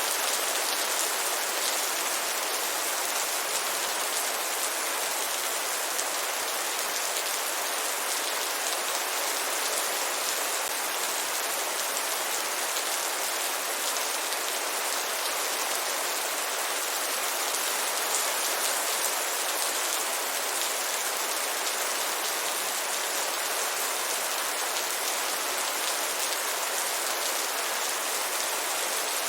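Heavy rain falling steadily, an even hiss of many drops on a surface with no change in strength.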